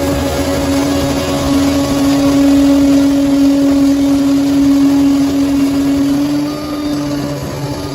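Bulldozer's diesel engine running under load with a steady high whine over the rumble, easing off about six seconds in.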